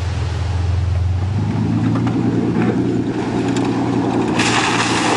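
Ford Ranger pickup's engine running on a dirt hill, its note growing fuller as it pulls harder about a second and a half in. Near the end a louder rushing noise joins it.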